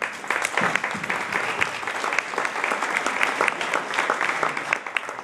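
Audience applauding, a dense patter of many hands clapping that dies away abruptly at the very end.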